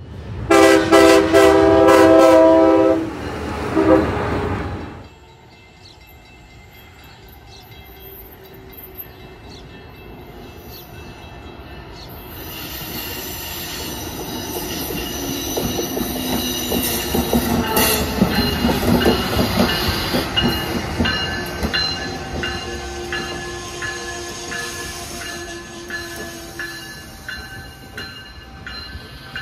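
A train horn sounds a chord in a long blast and then a short one over the first few seconds. Then an Amtrak Acela Express high-speed electric trainset approaches and passes at speed, its rush building to a peak about two-thirds through, followed by a rhythmic clicking of wheels as the cars roll by.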